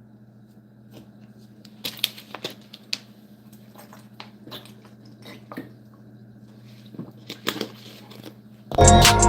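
Steady low electrical hum with scattered faint clicks. About nine seconds in, a loud trap beat with a deep 808 bass starts playing.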